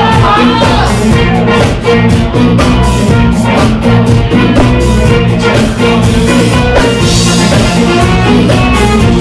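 Loud live band music with a steady drum beat, guitar and a singing voice.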